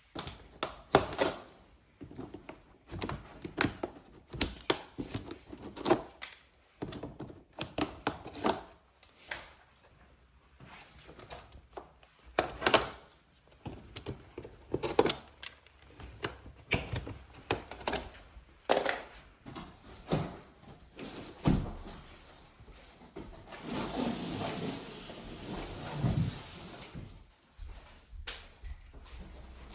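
TV packaging being handled: repeated knocks and thumps, with a few seconds of rustling or scraping about 24 seconds in.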